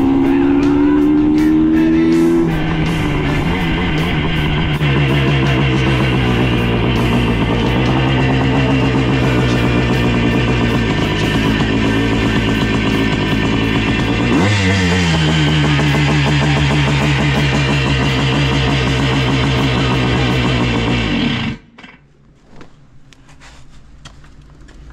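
1973 Honda CR250 Elsinore's two-stroke single-cylinder engine running: revs climb in the first couple of seconds, then it runs steadily, drops sharply in pitch partway through, and is shut off a few seconds before the end.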